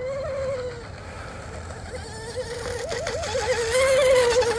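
RC outrigger boat's 4082 2000kv brushless motor and propeller whining as the boat runs laps on the water. The pitch wavers several times around the middle, and the whine grows louder to a peak with a rising hiss about four seconds in.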